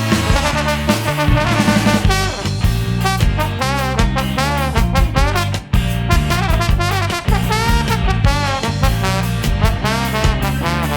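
Live band with a horn section of trumpet, trombone and alto sax playing a swinging ska instrumental over electric bass, guitar and drums. The band drops out for a moment about halfway through, then comes straight back in.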